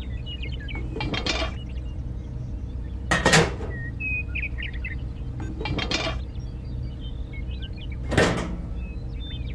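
Steady low engine hum with four short clattering, scraping bursts about two and a half seconds apart, and birds chirping faintly behind.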